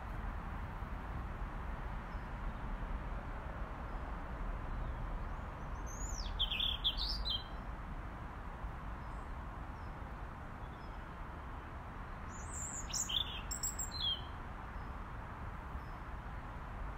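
Robin singing two short phrases of high, quickly sliding notes, about six and thirteen seconds in, over a steady low background rumble.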